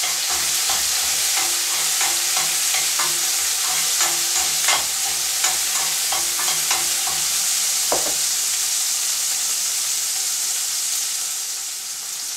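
Hot red pepper frying in vegetable oil in a pan, with a steady sizzle. Over it a utensil scrapes and taps against the pan as the pepper is stirred. The stirring stops about two-thirds of the way through and the sizzle carries on alone.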